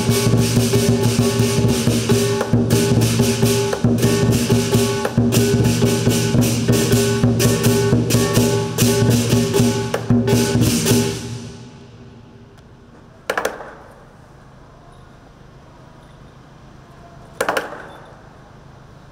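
Southern lion dance percussion band, with drum, cymbals and gong, playing a fast, dense clashing rhythm that stops about eleven seconds in. After that come two single strikes a few seconds apart, each with a short ring.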